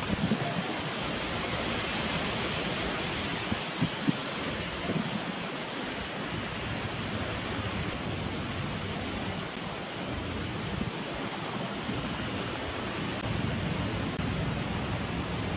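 Steady outdoor hiss, strongest in a high, shrill band, with a few soft low rustles in the first few seconds.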